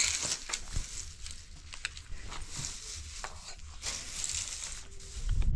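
Clear plastic bags rustling and crinkling, with scattered small clicks of nuts being handled and dropped into bowls.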